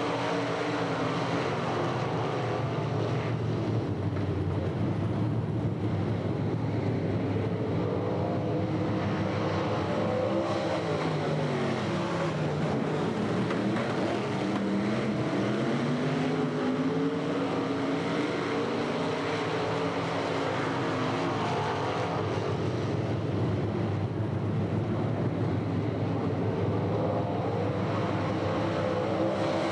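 Dirt late model race cars' V8 engines running hard around a dirt oval, the engine note falling and rising again as cars sweep past, several times over.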